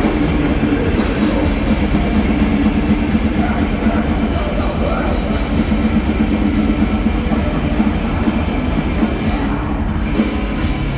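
Heavy metal band playing live at full volume: distorted guitars and bass over fast, dense drumming, without a break.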